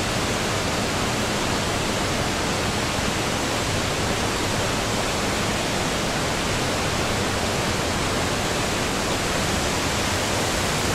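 Mountain river water rushing through a rocky gorge: a steady, unbroken rushing noise.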